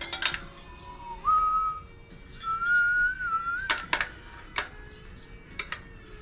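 A man whistling a short tune in two phrases, a slightly wavering pure tone that steps up in pitch. Sharp clinks of tools on the wheel come at the start and just after the second phrase. Faint background music runs underneath.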